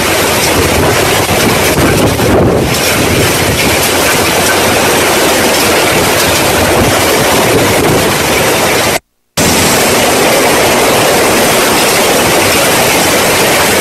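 Hurricane-force wind and driving rain blasting a camera microphone: a loud, steady rushing noise. It cuts out for a moment about nine seconds in and comes straight back.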